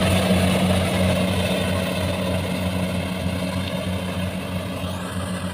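Kubota rice combine harvester's diesel engine running with a steady low drone, growing fainter as the machine moves away.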